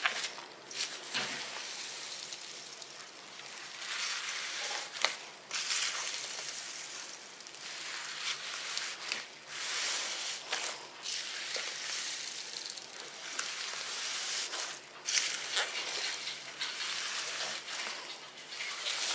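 Fluffy slime being worked and squished, making wet crackling and sticky popping sounds in uneven bursts, with a few sharp clicks.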